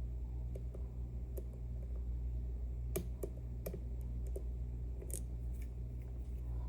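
Scattered light metallic clicks and ticks of a lock pick and tension tool working the sliders inside an Ezcurra C23 slider lock, about eight in all, over a steady low hum.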